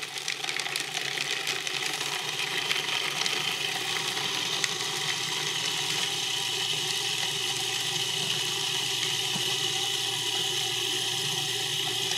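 Food processor running steadily, its blade chopping parsley, mint, chives and pistachios into a chunky pesto.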